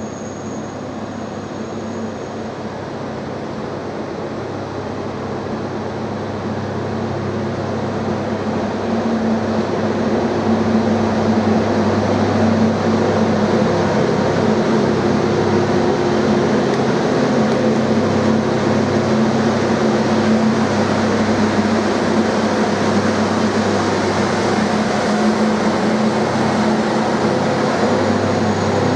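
Diesel engine of a track maintenance machine running as it rolls slowly past on the rail, a steady rumble that grows louder over the first ten seconds or so and then holds.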